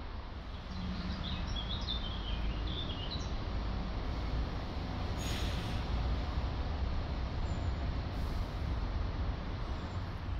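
Steady low rumble of distant road traffic with a small bird chirping several times in quick runs about a second in. Two brief rushes of noise come near the middle.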